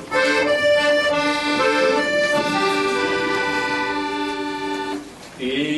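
Accordion playing slow, held chords that change every second or so, with a brief drop about five seconds in before a final chord.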